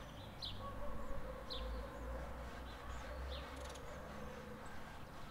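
Faint outdoor ambience: short high chirps, about one a second, over a low rumble.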